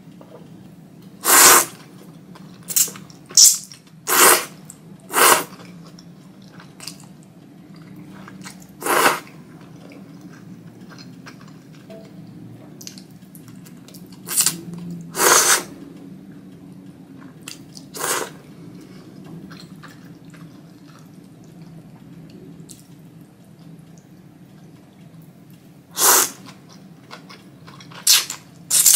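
A person slurping thick Jiro-style ramen noodles: about a dozen short, loud slurps come in clusters, with a low steady hum underneath between them.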